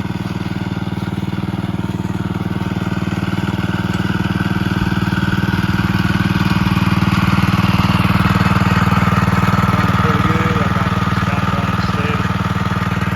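Champion 2-inch trash pump's small single-cylinder gasoline engine running steadily at full throttle, growing louder toward the middle and easing a little near the end.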